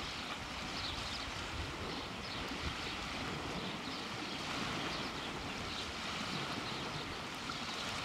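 Steady rush of surf on a beach, with faint high chirps repeating irregularly through it.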